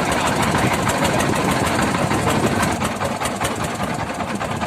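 An engine running steadily and loudly at a constant speed, with a fast, even firing rhythm.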